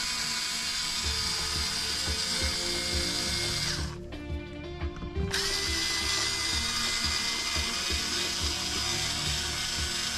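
Electric screwdriver running steadily as it backs out small screws. It stops for about a second around four seconds in, then spins back up. Background music with a low beat plays underneath.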